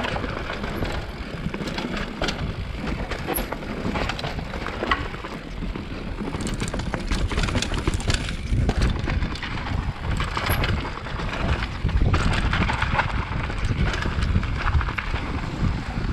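Mountain bike riding fast down a dirt forest trail: a steady rumble of tyres and wind on the microphone, with the bike rattling and clattering over bumps and roots all the way through.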